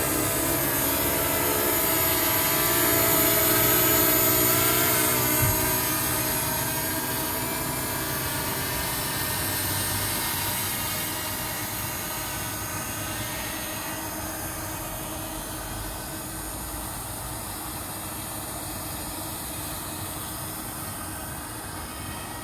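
DJI Mini 2 SE quadcopter's propellers buzzing with a whine that shifts in pitch early on, then steadily fading as the drone flies away.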